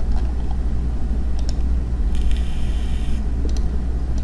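Steady low background rumble with a few sharp mouse clicks, and a brief high buzz lasting about a second, starting a little past two seconds in.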